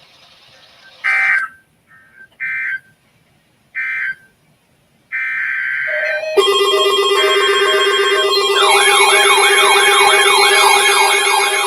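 Emergency Alert System data tones: three short warbling digital bursts about a second apart, typical of the end-of-message signal, then a longer data burst. About six seconds in, a loud layer of steady alert tones begins, joined by a siren-like wail rising and falling about twice a second.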